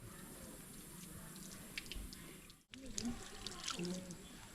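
Quiet background with a few faint scattered ticks or drips and faint distant voices after a break about two-thirds of the way in.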